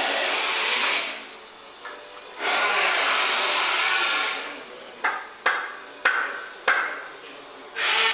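A power tool runs in bursts of a second or two, then four sharp knocks come in quick succession, about half a second apart.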